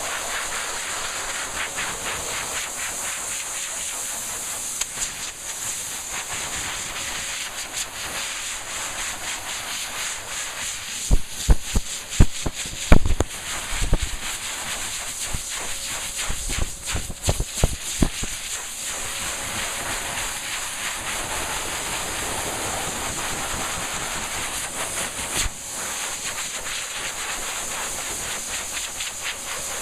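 Dog grooming blow dryer blowing a steady, loud rushing hiss of air. Around the middle comes a cluster of sharp, loud bumps and pops.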